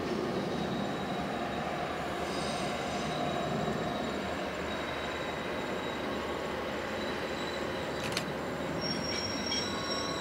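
Passenger train rolling slowly round a curve, a steady rumble of wheels on rail with a thin high-pitched wheel squeal. One sharp clack about eight seconds in.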